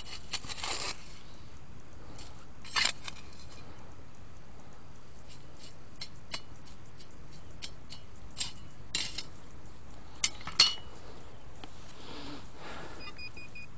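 Small digging shovel's steel blade scraping and clinking against pebbles in stony dirt, in scattered strikes: a cluster at the start, a sharp one about three seconds in, small ticks after, and the loudest pair a little past ten seconds. A short electronic beeping near the end.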